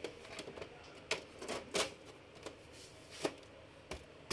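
Scattered light clicks and taps, about half a dozen, from screws and casing parts being handled as an HP Omni Pro 110 all-in-one PC is screwed back together.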